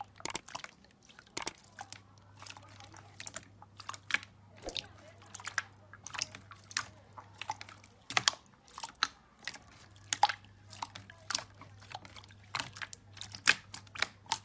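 Crisp crunching and crackling from a crunchy ASMR material being crushed, with irregular sharp cracks a few times a second.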